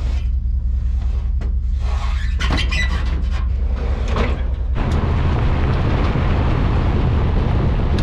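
A pickup truck's engine runs steadily while the steel shed's door squeaks and rattles shut. About five seconds in, this changes suddenly to steady road and wind noise as the truck drives, towing a trailer down a gravel road.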